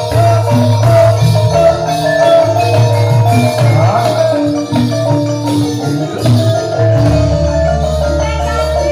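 Javanese gamelan music accompanying a jathilan horse dance: metal-keyed mallet instruments play a repeating melody of ringing notes over deep sustained low notes.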